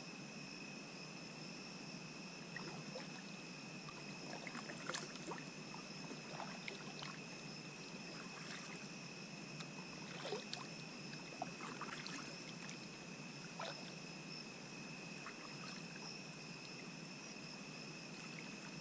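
Kayak paddle dipping into calm water, with irregular small splashes and drips every second or two over a steady high-pitched hum.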